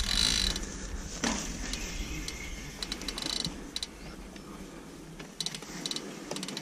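Bicycle freehub ratchet clicking in short runs and single ticks as the cyclocross bike's wheel and cranks are turned by hand, with a knock about a second in.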